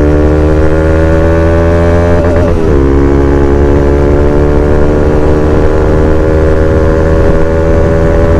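Single-cylinder motorcycle engine and exhaust heard from the saddle under acceleration, its pitch climbing slowly, dropping at a gear change about two and a half seconds in, then climbing again.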